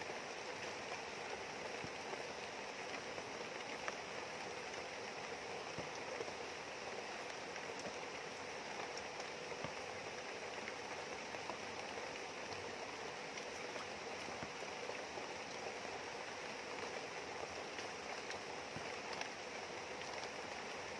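Steady rain falling, with the rush of a fast-flowing river beneath it.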